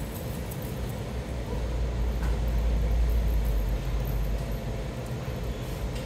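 A low rumble that swells for a couple of seconds in the middle and then eases off.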